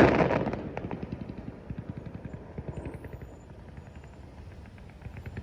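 The boom of a fireworks burst dying away over about the first second, with scattered crackles, then a low steady rumble with faint distant pops.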